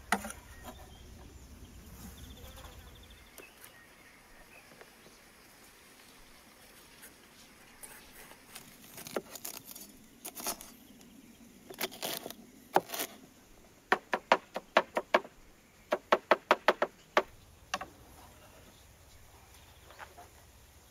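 Kitchen knife cutting green peppers on a wooden cutting board. First come scattered single cuts, then two quick runs of chopping, about six knocks a second, in the second half.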